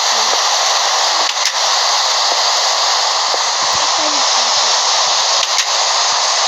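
A steady, loud hiss, with faint voices underneath.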